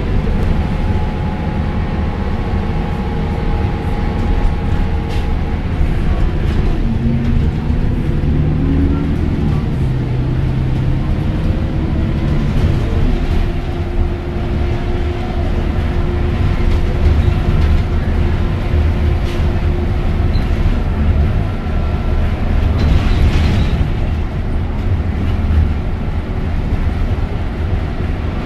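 Road and engine noise heard inside a moving car: a steady low rumble.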